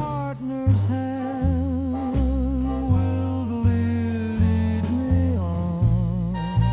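Old-time dance-band music between sung lines: a melody held in long, wavering notes over a steady bass beat.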